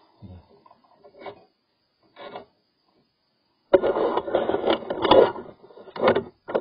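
Rubbing and scraping of equipment being worked in a drain pipe. A few short scrapes come early, then a near-silent gap of about two seconds, then dense rubbing in stretches from a little past halfway.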